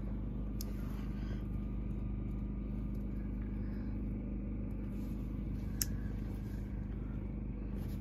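A steady low machine hum, with a faint click about half a second in and a sharp click about six seconds in.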